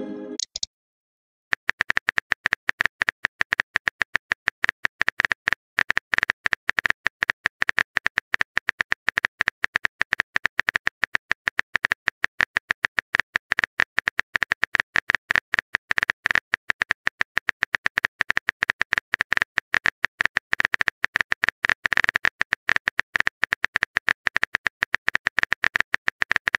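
Keyboard-tap sound effect of a texting-story chat app: a long, rapid, even run of short clicks, starting about a second and a half in, while a long message is typed.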